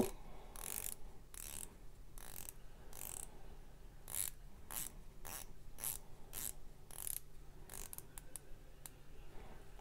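Rado Captain Cook's unidirectional dive bezel with its blue ceramic insert, turned by hand and ratcheting click by click, about two to three clicks a second, with a few lighter clicks near the end.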